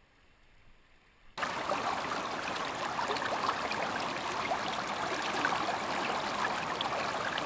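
Near silence at first, then about a second and a half in a steady rush of river water cuts in abruptly.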